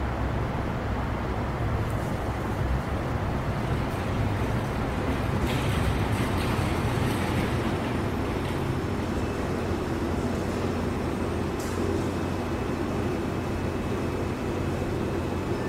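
A steady low rumble of ambient noise with no distinct events, a little brighter for a couple of seconds in the middle.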